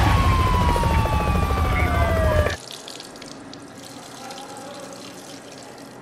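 Police siren winding down, its wail falling steadily in pitch over a loud rumble, cut off suddenly about two and a half seconds in. Then a much quieter steady room tone.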